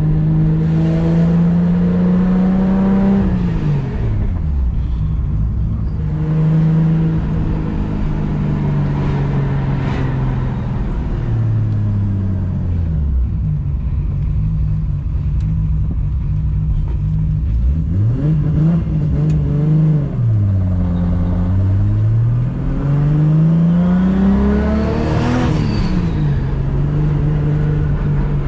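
Toyota Supra's engine running on a road test with a manual gearbox, the revs climbing and falling several times through acceleration and gear changes. There is no whine or clunk from the freshly rebuilt differential.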